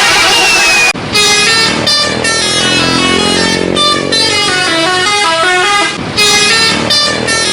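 Indonesian bus 'telolet' multi-tone musical horn playing a melody of short notes that step up and down. It starts about a second in, after a loud noisy rush, and breaks briefly near six seconds before starting again.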